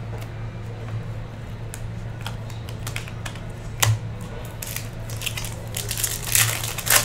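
Handling of sports card packs: scattered small clicks and taps, a sharp click about four seconds in, then a foil card-pack wrapper crinkling and tearing open in the last couple of seconds, over a steady low hum.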